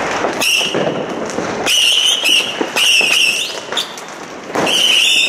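Fireworks on the pavement: a firework giving several high, shrill whistles of about half a second to a second each, with crackles and pops between them.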